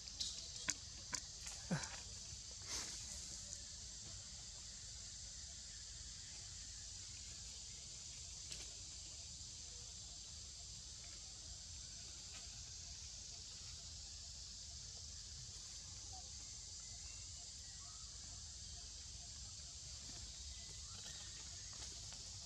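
Steady high-pitched drone of insects in the trees, with a few sharp clicks in the first three seconds.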